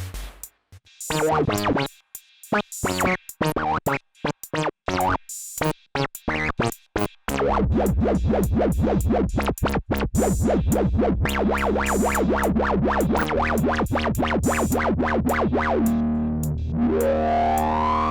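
Prophet 6 analog synthesizer playing a preset: short, separated notes for about seven seconds, then a held low bass under fast repeating notes, with regular hi-hat ticks from an Analog Rytm drum machine. Near the end a pitch sweep dips and then rises.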